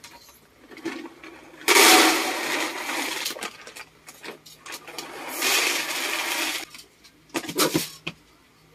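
Dry puppy kibble poured from a bag into a plastic food container: two long pours about four seconds apart, followed by a few short knocks near the end.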